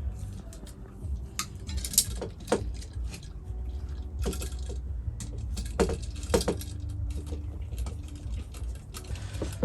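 Scattered light clicks and small rattles from handling electrical wiring parts, over a low steady hum.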